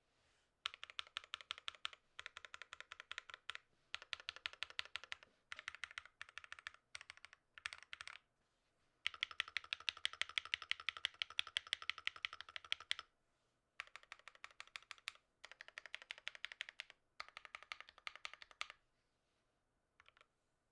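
Typing on a GMMK Pro mechanical keyboard with Alpaca V2 linear switches, lubed with Krytox 205g0 and filmed, on a polycarbonate plate with PBT keycaps: fast runs of keystrokes in bursts of a few seconds with short pauses, the longest run in the middle, stopping a little before the end.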